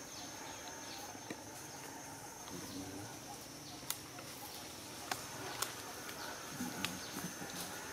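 Outdoor insect ambience: a steady high-pitched insect drone, with a few sharp clicks and two short low calls, one near the middle and one near the end.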